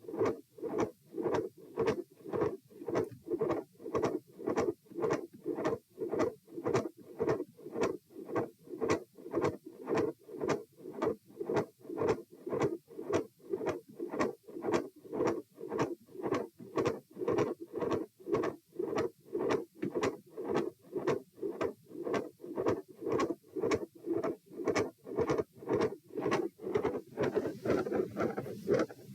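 A human heartbeat heard through a stethoscope at chest position E, a fast, even lub-dub at about 114 beats a minute while standing. The recorder hears a midsystolic murmur, a click and a fixed split second heart sound in it. A little rustling joins the beats near the end.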